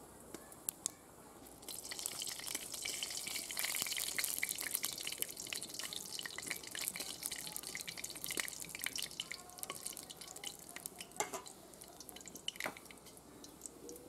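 Panch phoron (five-spice seeds) sizzling and crackling as they hit hot oil in a wok, tempering the oil. The crackle starts about two seconds in, is densest soon after and eases a little later, with a few louder pops.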